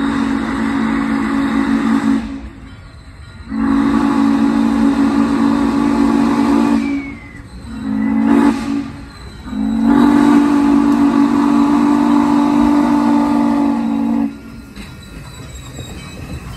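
Norfolk and Western J-class No. 611 steam locomotive's chime whistle blowing the grade-crossing signal: two long blasts, a short one, and a final long one. After the last blast, the locomotive rolls past close by.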